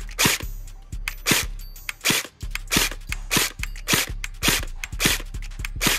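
Airsoft electric rifle (Umarex HK416 AEG) firing a steady string of shots, roughly one every half second, with background music underneath.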